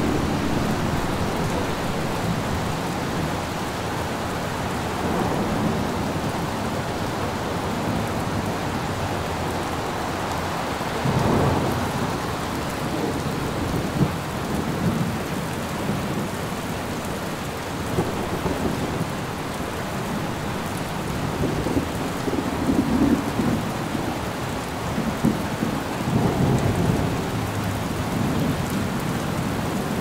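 Steady rain falling, with low rolls of thunder: one about a third of the way in and several more in the last third.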